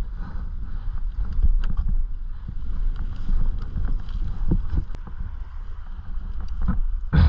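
Low rumble of wind buffeting the microphone, rising and falling, with scattered small clicks and knocks and one heavier thump near the end.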